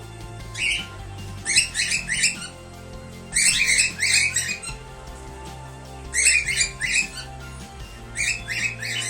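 Cockatiels calling in repeated bursts of quick, high chirps, a cluster every second or two, over steady background music.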